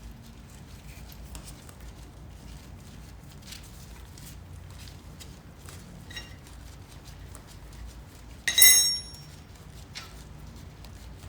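Light clicks and taps of small metal parts being handled during hand work on a motorcycle brake caliper's banjo bolt fitting, with one sharp ringing metallic clink about eight and a half seconds in.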